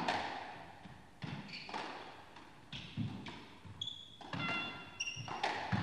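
A squash rally: the ball cracks off rackets and walls in a string of sharp hits, with shoes squeaking on the court floor as the players turn, loudest about four to five seconds in.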